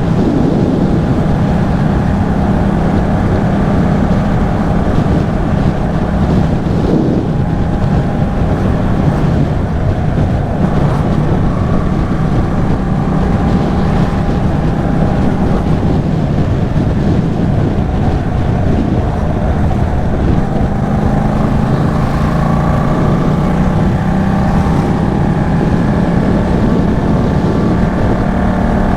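Yamaha MT-07's 689 cc parallel-twin engine running through an Arashi aftermarket exhaust while being ridden, its note rising and falling with the throttle. Heavy wind noise on the microphone runs underneath.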